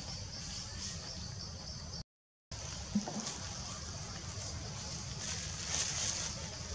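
Forest ambience: a steady high insect buzz, pulsing rapidly at first, over a low rumble. The sound cuts out completely for a moment about two seconds in.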